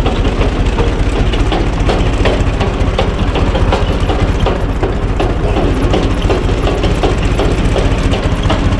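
A U445 DT tractor's diesel engine running steadily at idle, with a regular light clatter of knocks over the low rumble from the screw-cone log splitter driven off its rear.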